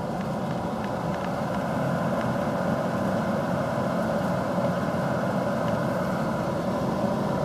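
Steady drone of an old HVAC air handler running.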